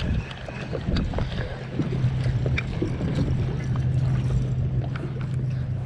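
Small boat's outboard motor running at low speed: a steady low hum, with water and wind noise and a few small knocks.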